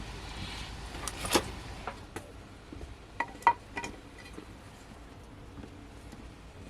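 Kitchenware clinking: a sharp clink about a second in, then a cluster of ringing clinks about three and a half seconds in.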